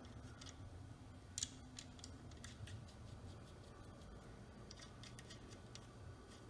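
Faint, scattered small metal clicks as the connecting-rod cap nuts on a small-block Chevy crankshaft journal are handled and turned by hand, over a low steady hum. The clearest click comes about a second and a half in, with a few more near the end.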